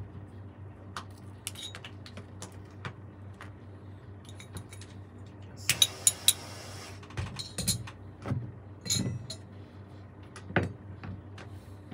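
Small metal repair tools and saxophone parts clinking and tapping on a workbench, with a brief hiss about six seconds in, over a steady low hum.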